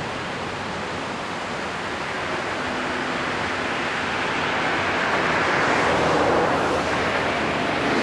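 Ocean surf washing onto a sandy beach, with a wave breaking and swelling louder a little past halfway.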